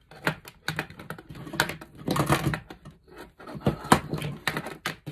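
Irregular sharp clicks and clatter of plastic electrical fittings being handled on a wooden tabletop: a wired light-switch plate and a round LED downlight being picked up and set down, with their cables dragging.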